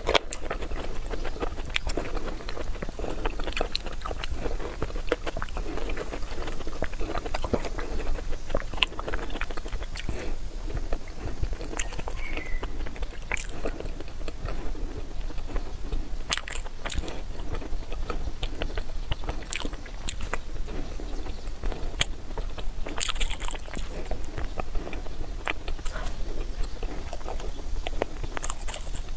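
A person chewing and biting soft food close to the microphone, with many small mouth clicks throughout.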